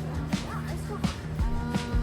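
Background music with a steady beat and a bass line, with a short melodic line coming in near the end.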